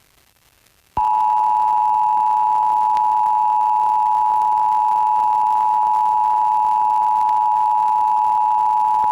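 Emergency Alert System attention signal: the standard two-tone alert, two steady pitches sounded together, starts about a second in, after a short gap that follows the data header. It holds for about eight seconds and cuts off suddenly, opening a required monthly test broadcast over FM radio.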